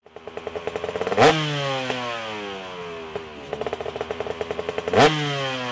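Motorcycle engine revved twice, once about a second in and again near the end. Each time the firing pulses speed up to a sharp peak, then the revs fall away slowly.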